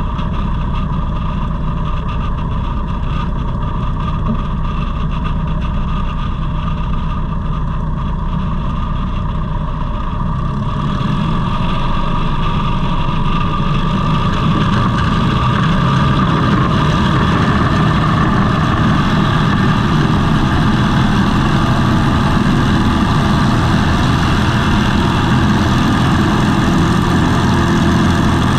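Savage Outback light aircraft's engine and propeller running steadily at low power, then throttled up about ten seconds in and louder again a few seconds later for the takeoff run.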